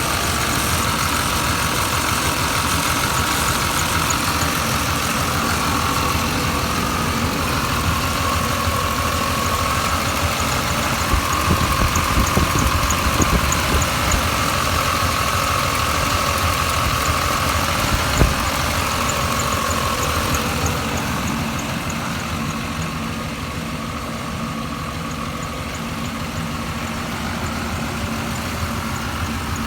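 1989 Chevy Silverado engine running at idle with a steady higher-pitched whine over it: the strange noise the owner cannot place. There is one sharp knock a little past halfway, and the sound eases slightly near the end.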